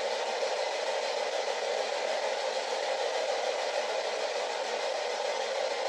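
Steady hiss of radio static from a spirit box, with no voice or word breaking through.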